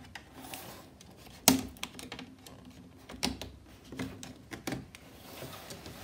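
Plastic clicks and knocks from a laptop's plastic bottom case being pried loose with a guitar pick and shifted on a table. The clicks are irregular, with a sharp one about a second and a half in and several softer ones later, and faint scraping between them.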